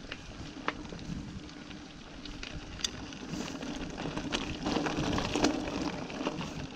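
Mountain bike riding down a narrow dirt and stone singletrack: tyres crunching over the ground with many scattered clicks and rattles from the bike, growing louder about halfway through as the trail turns stony.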